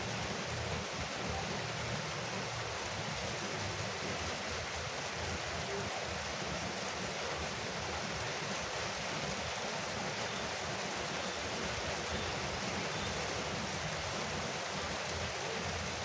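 Steady rain drumming on a porch roof, a dense even hiss with no thunder or single drips standing out.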